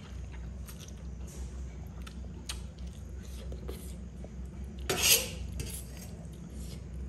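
Metal fork clinking and scraping against a stainless steel plate while twirling noodles: a series of light clicks, with one much louder burst about five seconds in. A steady low hum runs underneath.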